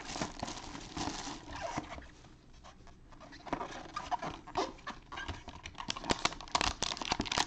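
Plastic shrink-wrap being torn and crinkled off a cardboard trading-card box, then the box lid opened and the foil wrapper inside handled: irregular crackles and clicks, busier in the second half.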